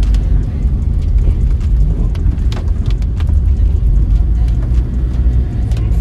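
Car on the move, heard from inside: a steady low rumble of engine and tyres on the road, with a few light knocks from bumps.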